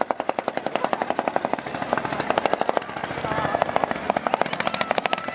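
Demolition derby car's unmuffled engine running with a rapid chopping beat of about ten pulses a second.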